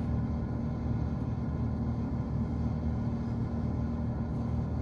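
Steady low rumble with a constant hum heard inside an ICE high-speed train carriage standing or creeping at a platform.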